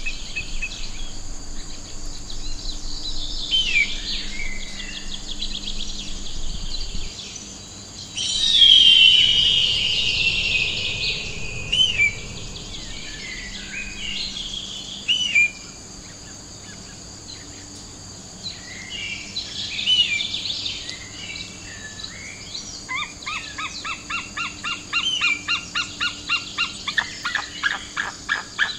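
Eagle calls: high, gliding chirps and whistles, with one loud falling scream about nine seconds in. Near the end comes a rapid run of repeated yelping notes, about three a second, from a white-tailed eagle. A steady high tone runs underneath.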